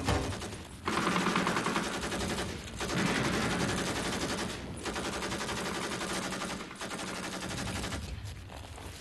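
Dense, rapid rattling like automatic gunfire, in runs of about two seconds broken by short gaps, easing off near the end.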